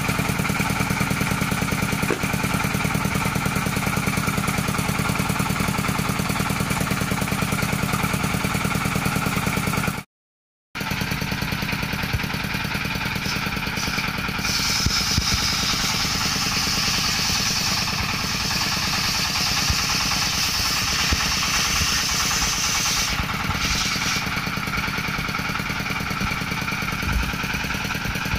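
Engine-driven circular saw bench running steadily while ripping coconut wood. The sound cuts out for an instant about a third of the way in. A high steady whine from the blade in the wood then joins the engine note and holds, with a short break near the end.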